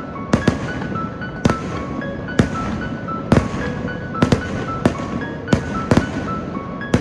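Aerial fireworks shells bursting in quick, irregular succession: about a dozen sharp bangs, each trailing off in an echo, over a continuous rumble.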